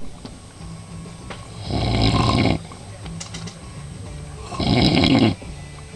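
A man snoring: two loud snores, each just under a second long and about three seconds apart, with quieter breathing between.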